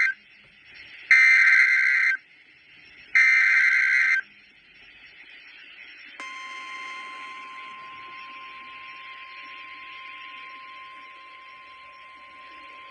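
Emergency Alert System SAME header: two raspy two-tone data bursts, each about a second long and a second apart. About six seconds in, the steady 1050 Hz NOAA Weather Radio warning alarm tone starts and holds over faint radio hiss. The tone signals that a warning announcement follows.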